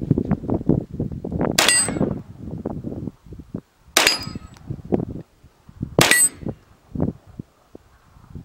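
Ruger PC Carbine 9mm semi-automatic rifle firing single aimed shots: three about two seconds apart, then a fourth at the very end, each shot followed by a short metallic ring.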